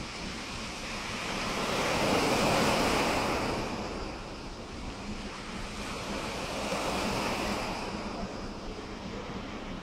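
Small waves washing onto a pebble beach, swelling and fading twice in slow surges, with wind rumbling on the microphone.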